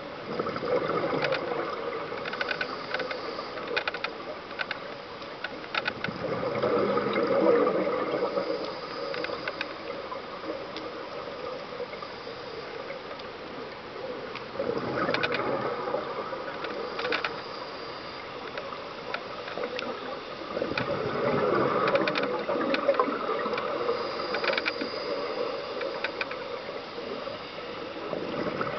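Scuba diver breathing through a regulator underwater: exhaled bubbles rush past in swells every six to eight seconds, with scattered sharp clicks between them.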